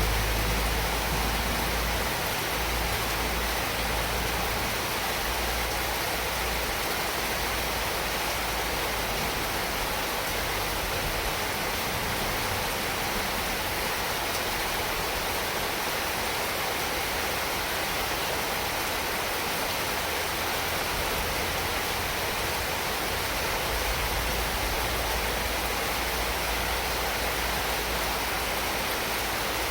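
Heavy rain falling steadily, a dense even hiss, with a low wind rumble that is strongest at the start and swells again about 24 seconds in.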